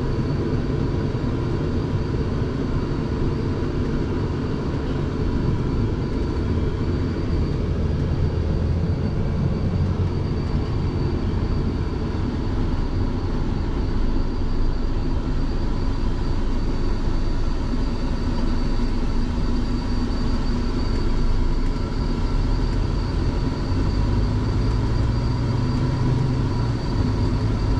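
Scania truck's diesel engine running, heard from inside the cab as the truck moves slowly, a steady low rumble with a thin constant whine over it. The engine note grows stronger about two-thirds of the way through.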